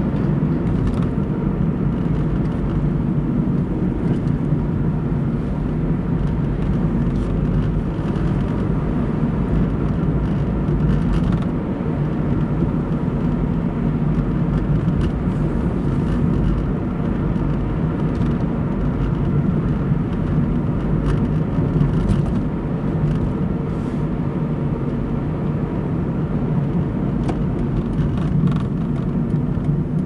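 A car's engine and tyre noise, heard from inside the car as it drives at a steady pace.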